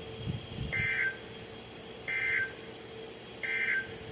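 Emergency Alert System end-of-message signal: three short, identical buzzy digital data bursts (SAME code), evenly spaced about a second and a half apart. They mark the end of the warning broadcast.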